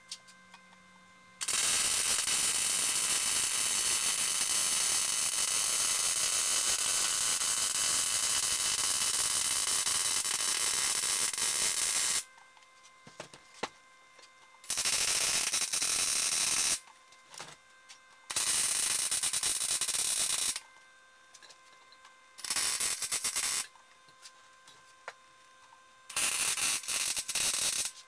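MIG welder arc crackling as steel hitch parts are welded. There is one long bead of about ten seconds, then four short bursts of a second or two each, each starting and stopping abruptly.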